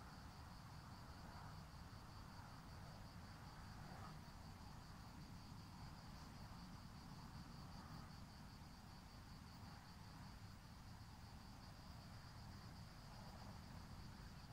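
Faint, steady high-pitched trilling of insects over a low background rumble.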